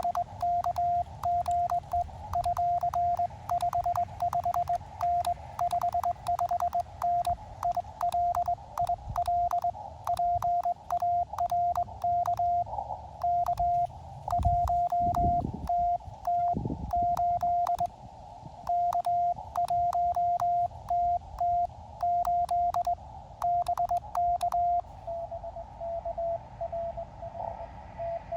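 Morse code on an Elecraft KX2's sidetone, hand-keyed with KXPD3 paddles used as a cootie (sideswiper) key: a steady high beep broken into dots and dashes, with faint clicks as the key makes contact. A few dull thumps fall in the middle. Near the end the sending stops and a fainter Morse signal at a slightly lower pitch comes in from the receiver.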